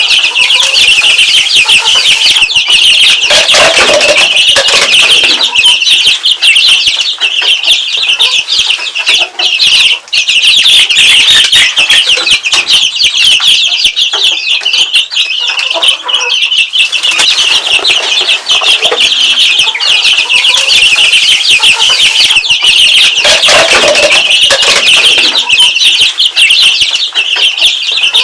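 Chickens clucking now and then over a loud, steady high-pitched buzz.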